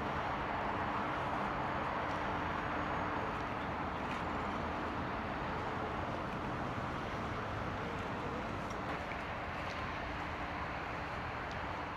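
Porsche 911 (996) Turbo driving at a steady pace, its twin-turbo flat-six a faint steady hum under a constant hiss of tyre and wind noise.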